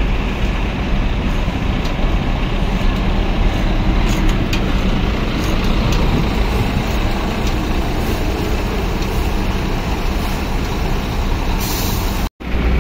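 Rear-mounted diesel engine of a Mercedes-Benz OU 500 RF 2542 double-decker coach running steadily with a low rumble, heard close beside its engine bay. A brief hiss comes near the end.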